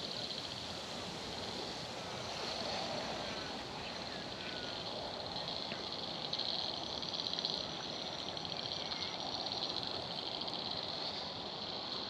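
Lakeside outdoor ambience: a high, fast-pulsing buzzing chorus that swells and fades, with a few short chirps over a soft background hiss.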